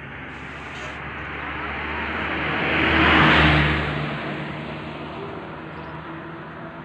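A motor vehicle driving past close by: its engine and tyre noise swell to a peak about three seconds in, then fade away over the next couple of seconds.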